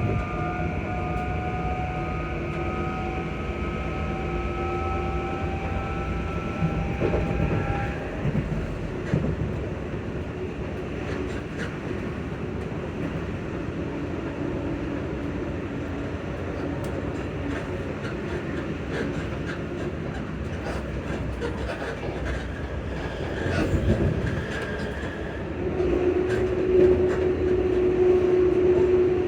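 Class 334 electric multiple unit's traction motors whining on the move, several tones rising together in pitch for about eight seconds, then cutting off suddenly. After that, steady running rumble with scattered wheel clicks over the rails, and a steady hum comes in near the end.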